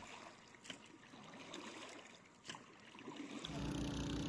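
Floodwater trickling and sloshing, with two sharp knocks. Near the end a steady engine hum comes in and gets louder.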